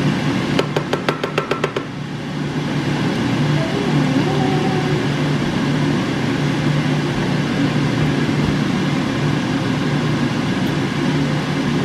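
A quick run of about nine light taps in the first two seconds, as of a wooden spoon tapped against the rim of a metal frying pan to knock food off. Over a steady kitchen hum.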